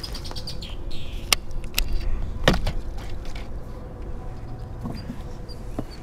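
Wind buffeting the microphone with a steady low rumble, with birds chirping faintly and three sharp clicks or knocks in quick succession between one and three seconds in.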